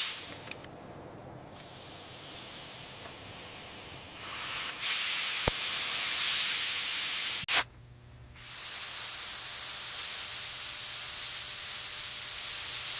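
Hissing spray of air or fluid under pressure that comes and goes: softer at first, a louder stretch of about three seconds in the middle ending in a sharp click, a short pause, then a steady hiss.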